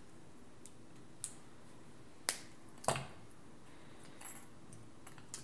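A few short, sharp metal clicks, the two loudest about two and three seconds in, with faint ticks later, from jewelry pliers and flush cutters being handled and laid down on the bench.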